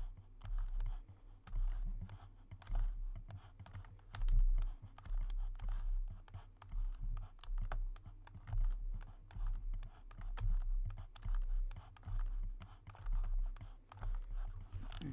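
Rapid, irregular clicking of a computer keyboard and mouse as faces are selected and deleted, with dull low thumps along with the clicks.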